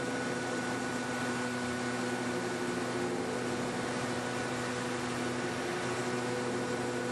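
Helios Zeus CNC machining center's spindle running steadily while its cutter engraves stone under water spray: a constant machine hum with several held tones over an even hiss.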